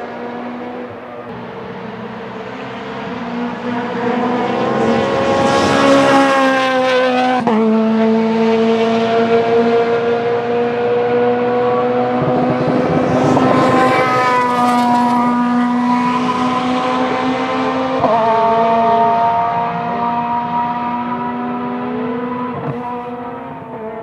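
Rally car engines running hard at high revs as cars drive past on the circuit, loudest twice, about a quarter of the way in and just past the middle, with a sudden gear change about a third of the way in and another about three quarters in.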